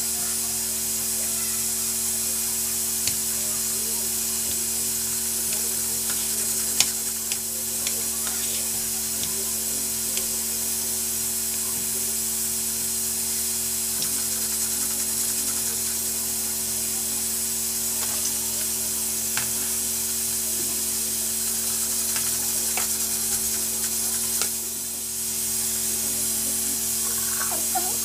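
A kitchen knife chopping tomatoes on a stone countertop: a scattering of sharp taps, one every couple of seconds. Under it runs a steady hiss and a low hum.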